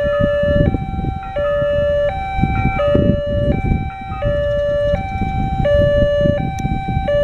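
Railway level-crossing warning alarm from the loudspeaker on the crossing signal: an electronic two-tone chime alternating steadily between a lower and a higher note, each held about two-thirds of a second, warning of an approaching train. A low rumbling noise runs underneath.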